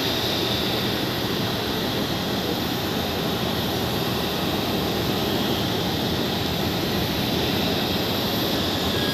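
Airliner jet engines running steadily: a constant rushing noise with a thin high whine above it.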